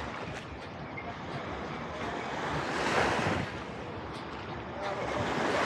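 Small sea waves breaking and washing up on a sandy beach, the surf swelling about halfway through and again near the end, with wind rumbling on the microphone.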